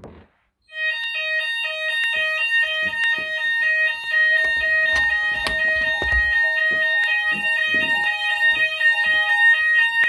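Fire alarm sounders going off, set off by a manual call point opened with its test key. A steady high tone sounds with a rapidly stepping multi-pitch tone over it, starting just under a second in.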